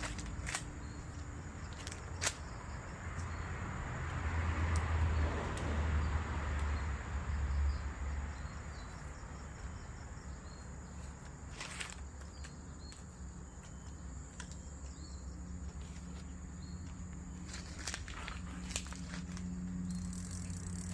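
Rural outdoor ambience: a steady high insect drone over a low rumble that swells for a few seconds early on, with a few scattered clicks.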